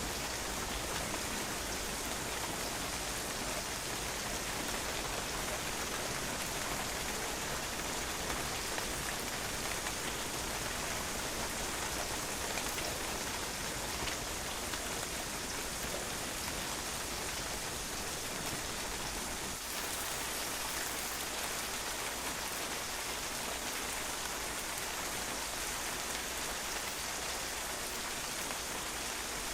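Steady rain falling and spattering on a patio, an even hiss of drops with no let-up.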